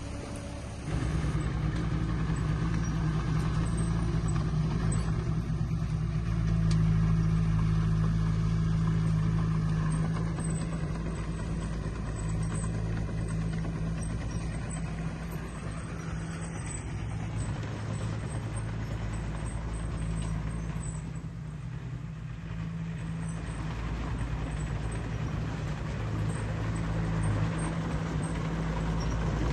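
Diesel engine of heavy earthmoving equipment running steadily, rising in level about a second in, louder for a few seconds, easing off past the middle and building again near the end.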